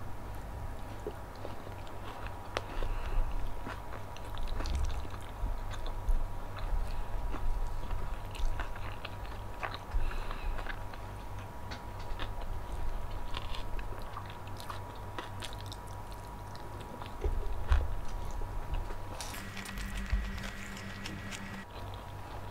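Close-miked chewing and biting of crisp food, with many small crunches and wet mouth sounds. A faint steady high whine runs underneath, and a second brief steady tone sounds for about two seconds near the end.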